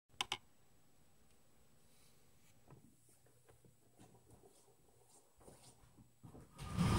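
Two sharp clicks right at the start, then a quiet room with faint rustles and light footsteps as a man walks over to a grand piano's bench; a louder sound builds in the last half-second.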